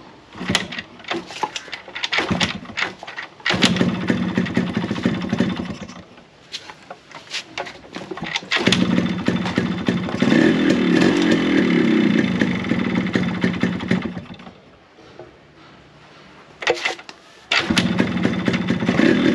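Yamaha RX100's small two-stroke single-cylinder engine being kicked and run in spells, with rattling clicks, then running and revved, dying away, kicked again and catching near the end. It has a freshly fitted cylinder block and piston, which the owner says cured the worn-piston noise.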